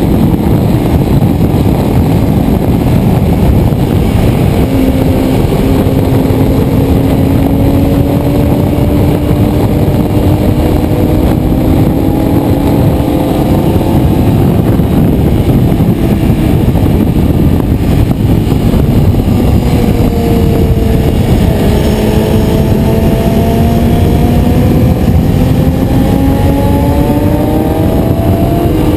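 Ducati 848 Evo's L-twin engine pulling hard under way, its note climbing steadily for several seconds at a time, dropping about twenty seconds in, then climbing again. Heavy wind rush on the bike-mounted camera's microphone runs under it.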